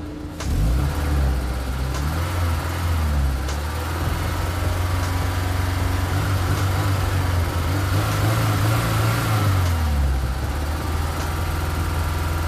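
Honda S2000 inline-four engine running, its pitch lifting slightly past the middle and settling back down near the end.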